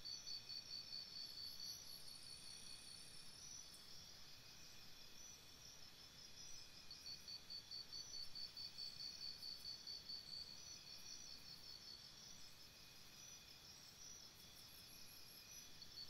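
Faint jungle insect chorus: several insects chirping in rapid, evenly repeated high-pitched pulses, over a soft background hiss.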